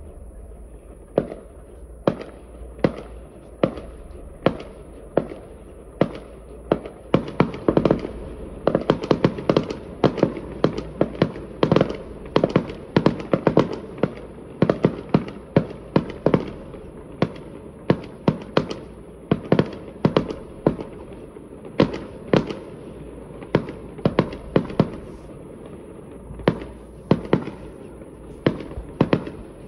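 Fireworks going off: a continuous series of sharp bangs and cracks from bursting shells. They start spaced out, crowd into rapid volleys of several a second from about a quarter of the way in to about three quarters, then thin out again.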